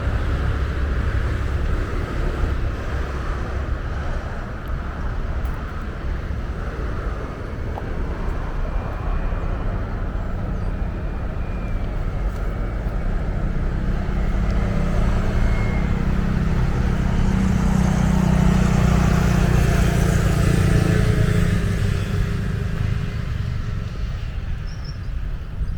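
Steady low rumble of road traffic outdoors, with one vehicle passing and growing louder about two-thirds of the way through before fading.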